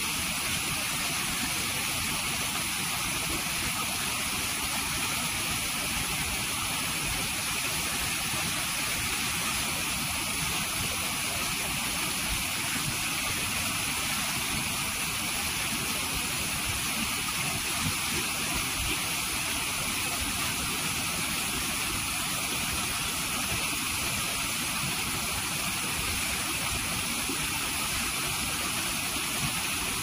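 Mountain stream water cascading over boulders in a small waterfall: a steady, even rush of falling water.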